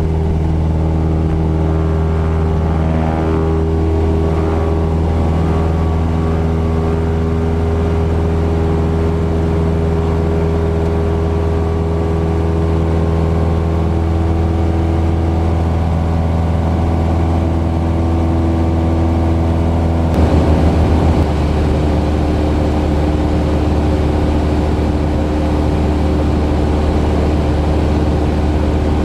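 Cessna 172's piston engine and propeller heard from inside the cabin, running as a steady drone while climbing out after takeoff. The sound shifts briefly about twenty seconds in.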